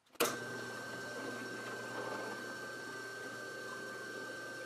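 Benchtop drill press switched on about a quarter second in and running steadily, a steady high whine over its motor hum.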